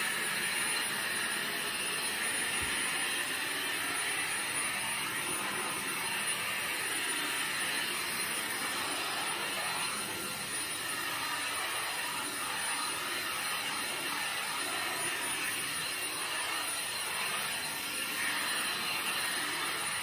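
Jimmy JV83 cordless stick vacuum running steadily, with its high-speed digital motor giving a thin high whine over the hiss of rushing air. It is fitted with a dusting brush on an extension wand.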